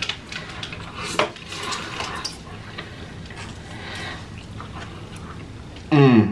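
Chopsticks clicking and scraping against a takeout container, then pad thai noodles slurped into the mouth. Near the end comes a loud, short, falling 'mmm' hummed with the mouth full.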